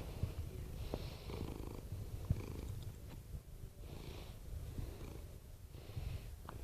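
Domestic cat purring close to the microphone: a steady low rumble, with a soft breath heard about every two seconds.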